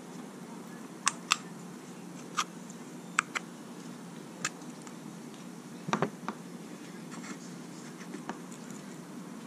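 Scattered light clicks and taps of a motorcycle front brake caliper and its slide pins being handled and refitted, with a short cluster of knocks about six seconds in, over a steady low hum.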